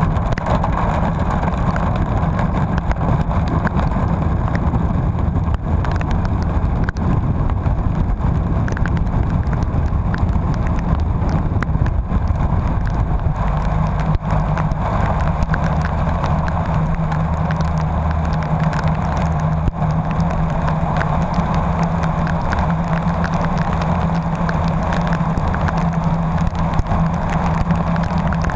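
A motor vehicle driving steadily, with continuous engine and road noise. The engine's hum becomes a stronger, steadier note from about halfway through.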